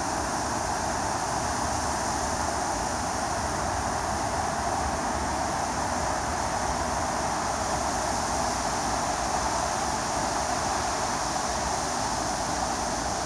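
Steady wind blowing through tall reeds and buffeting the microphone, an even rushing noise with a low flutter.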